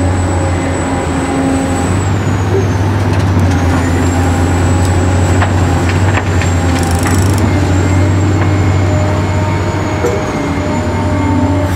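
Toy RC excavator working: a steady hum with a thin, high electric-motor whine that dips in pitch and comes back twice as the boom and bucket move, and a few light clicks midway.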